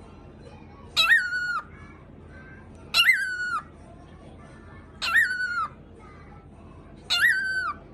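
Pet cockatiel imitating a dog's bark: four calls about two seconds apart, each a short rise in pitch followed by a falling, held note.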